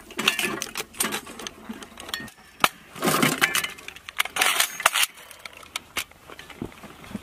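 Metallic clinks and rattles of a belt of 12.7 mm cartridges being handled and fed into an NSV heavy machine gun: irregular sharp clicks with short louder clattering spells.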